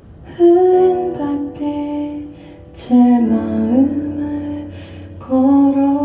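A woman singing a slow Korean ballad over soft chords from a Kurzweil SP2X stage piano. She sings three phrases, coming in about half a second, three seconds and five seconds in, and the second one dips and rises in pitch.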